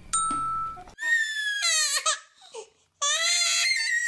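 A baby crying hard: two long, high-pitched wailing cries, the first starting about a second in and the second near the end. Before the first cry there is a short steady tone.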